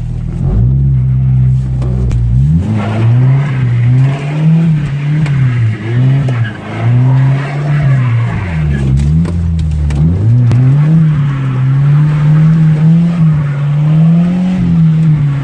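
Ford Ranger pickup's engine revving up and down over and over as the truck is drifted in circles on a wet road, its pitch rising and falling every second or two.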